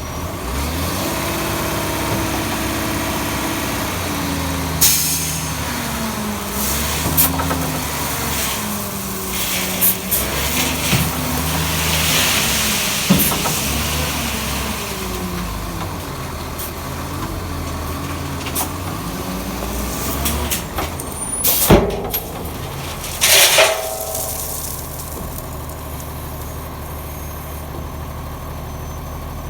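Dump truck's diesel engine running under the load of its hydraulic conveyor and spinner, which carry 1¼-inch crushed rock; the engine pitch rises and falls repeatedly. A few short, sharp bursts stand out about two-thirds of the way through.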